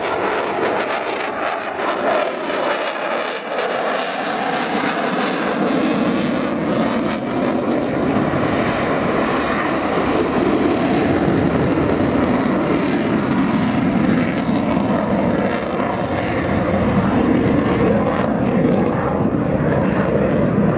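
Eurofighter Typhoon's twin EJ200 jet engines running loud and steady through a display turn, afterburners lit, with a faint slowly shifting whine.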